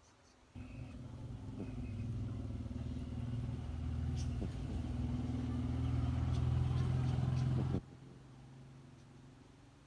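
A low, steady rumbling drone that comes in suddenly, grows louder over about seven seconds and cuts off abruptly near the end, with a few faint, short high chirps over it.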